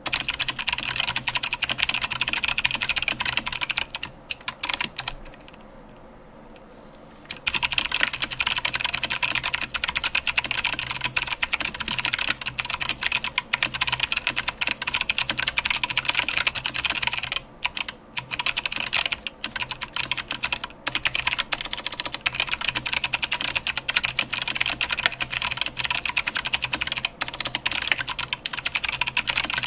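Typing on a Phantom TKL mechanical keyboard in a Tex aluminum case, with 65g Zealistotle switches (Aristotle stems in Zeal housings) under PBT keycaps: a fast, continuous clatter of keystrokes. It pauses for about two seconds around five seconds in, and briefly again a little past the middle.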